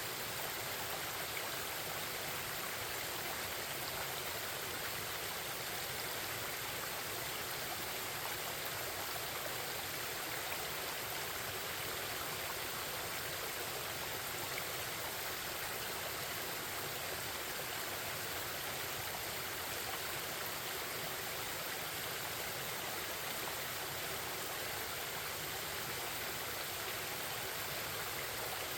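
Forest stream babbling over rocks, a steady rushing flow of water without pause.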